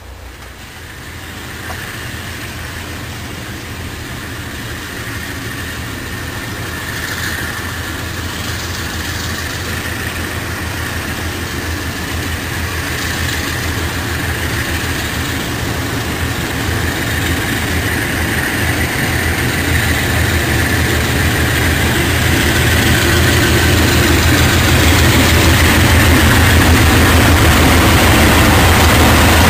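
Several diesel freight locomotives working under power as they approach, a low engine rumble growing steadily louder.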